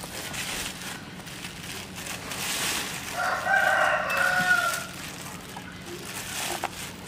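A rooster crows once, a single long call starting about three seconds in, over the rustle of a plastic bag being pulled and handled.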